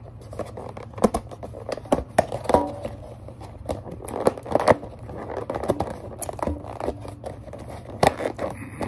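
Clear plastic wrapping crinkling and rustling as it is handled, with many irregular sharp clicks and crackles.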